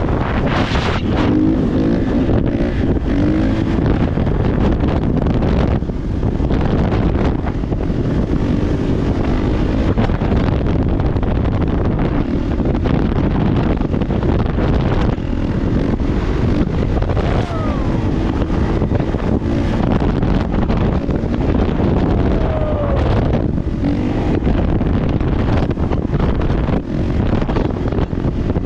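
Kawasaki KX450 dirt bike's single-cylinder four-stroke engine running while being ridden, its revs rising and falling, under heavy wind noise on the microphone.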